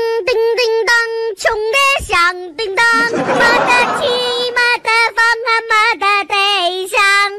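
High-pitched singing voice, like a child's, in a run of quick short notes held around one pitch with a quavering vibrato.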